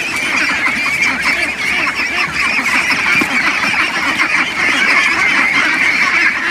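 A large flock of young ducks calling all at once, a dense, unbroken chatter of overlapping calls, as a sack of feed is carried in to them at feeding time.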